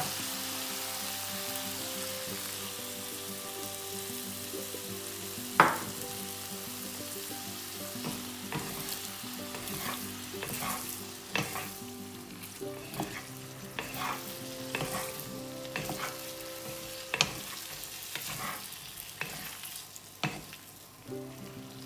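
Chicken strips sizzling in a stone-coated wok with freshly added soy sauce. A wooden spatula stirs them, knocking and scraping on the pan many times from about eight seconds on, with one sharper knock about five and a half seconds in.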